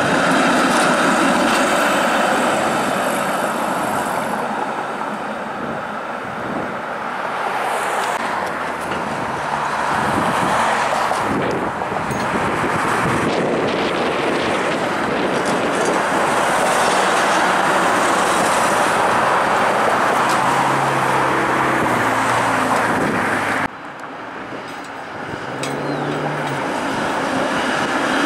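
Toronto CLRV streetcars running along street track amid passing car traffic: a steady road-and-rail noise that swells as vehicles go by. The sound drops suddenly about 24 seconds in, then builds again as another streetcar approaches.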